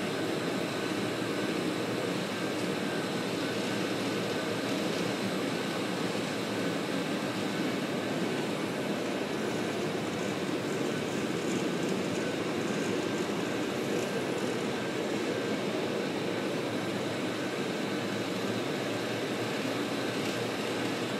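HTC planetary floor grinder grinding a fine-floated concrete slab for a polished-concrete finish, a steady drone from its motor and the grinding heads on the concrete, with the dust extractor running on its hose.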